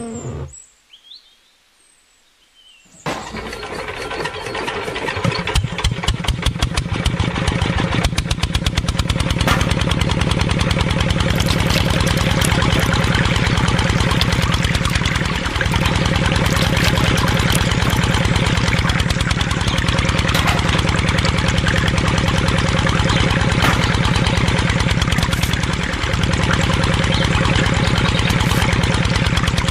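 Small engine starting about three seconds in, building up over a few seconds, then running steadily with a fast, even beat as it belt-drives a miniature water pump.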